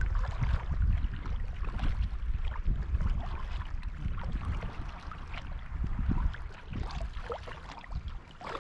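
Water splashing and trickling from a sea kayak being paddled along, with a low rumble of wind on the microphone.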